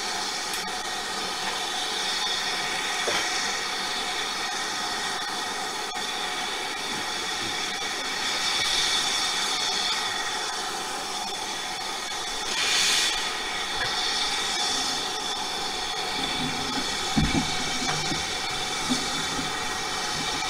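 Steam locomotive standing with steam hissing steadily, a louder burst of hiss about two-thirds of the way through. A few low knocks near the end.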